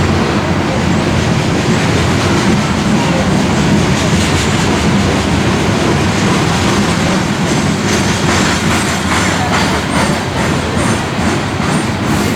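Freight train of coal hopper cars rolling past, a steady loud rumble of wheels on rail, with clicking from the wheels over the rail joints more marked in the second half.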